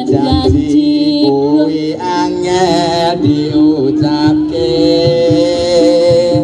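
Live Javanese jaranan ensemble music: a singer holding long, wavering notes over a steady low tone and a regular drum beat.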